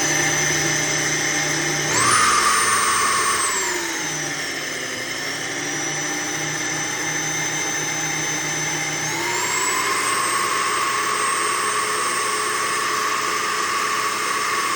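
Electric drill running a 1/4-inch diamond drill bit into a ceramic plate, its motor whining steadily. The motor speeds up about two seconds in, slows down over the next couple of seconds, then speeds up again about nine seconds in and holds steady.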